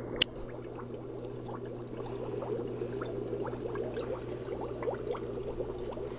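Air-driven aquarium sponge filter bubbling: a continuous stream of small bubble pops and trickling water over a steady low hum. A single sharp click comes about a quarter of a second in.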